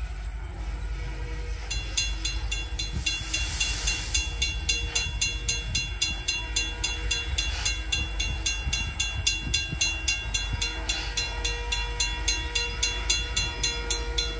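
Norfolk & Western 611 steam locomotive and its passenger train rumbling past. From about two seconds in, a grade-crossing bell rings in a rapid, even rhythm of about four strokes a second.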